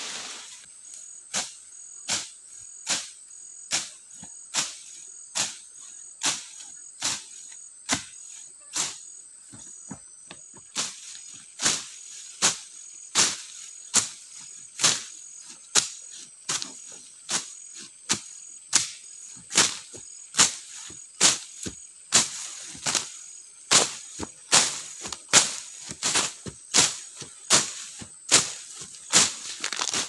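Wood being chopped with a blade, a steady run of sharp strikes about one every 0.8 seconds, coming closer together in the second half. A continuous high-pitched insect chirring sounds under the strikes.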